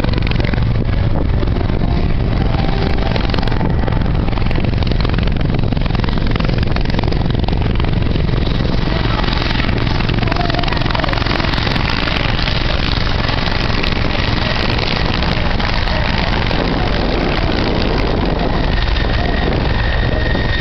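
Bell 412 helicopter in low flight, its four-blade main rotor and twin turboshaft engines running steadily; from about halfway through the sound fills out higher up as it comes closer.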